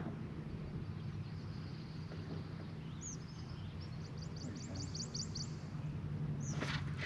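A bird sings a quick run of about ten short, repeated high notes about three seconds in, over a steady low hum.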